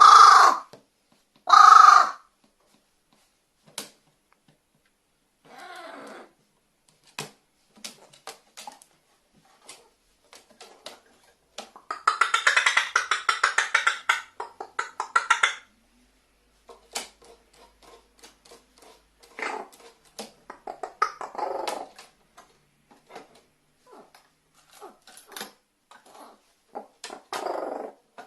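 Pet carrion crow calling: a loud caw right at the start and another about two seconds in. Scattered clicks and taps and softer calls follow, with a rapid rattling run of pulses lasting about three and a half seconds near the middle.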